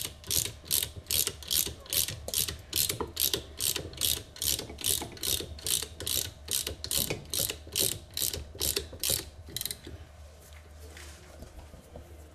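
Ratchet wrench clicking in steady back-and-forth strokes, about two and a half a second, as it turns the case puller screw to lower an Agni motor's case back onto the armature. The ratcheting stops about ten seconds in.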